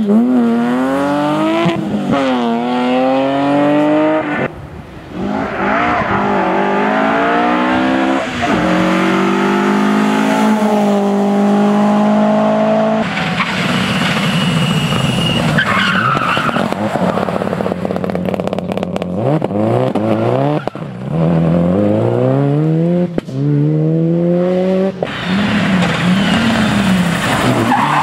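Several rally cars driven flat out in turn, their engines revving hard and rising in pitch, then dropping back at each gear change, with tyre and road noise underneath.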